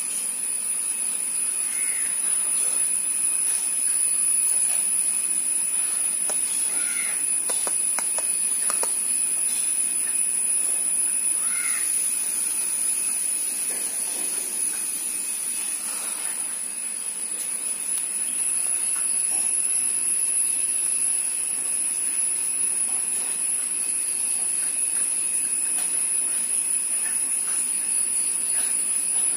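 Steady high-pitched insect drone, with a few short bird calls about 2, 7 and 12 seconds in. The frog itself makes no sound.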